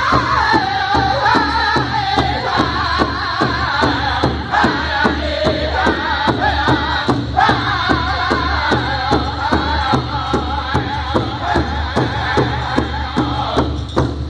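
A powwow drum group: several men singing in high, wavering voices over a steady unison beat on a large hide powwow drum struck with drumsticks, about two to three beats a second. The singing drops out briefly about halfway through and again near the end while the drumbeat keeps going.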